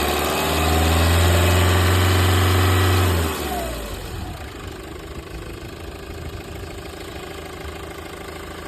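Renault Mégane III 1.9 dCi four-cylinder turbodiesel engine held at raised revs, then dropping back about three seconds in and running on more quietly at idle. The owner hears a strange noise from it that he cannot identify.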